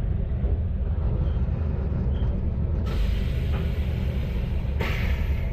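Kanto Railway KiHa 532 diesel railcar running with a steady low engine rumble. About three seconds in, a hiss of compressed air starts; it breaks briefly and then comes back louder near the end.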